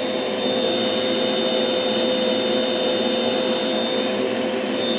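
Steady whir of the WOXCKER L8 laser engraver's fans running, with a constant hum and a thin high whine.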